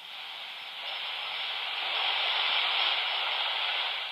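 Static hiss from a Magnum 1012 handheld 11-metre transceiver's speaker, tuned to 27.555 MHz, swelling over about two seconds and then easing off.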